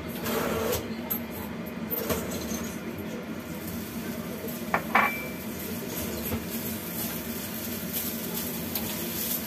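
Kitchenware clatter as food is tipped from a small ceramic bowl into a frying pan and stirred with a spatula, with two sharp ringing clinks about halfway through.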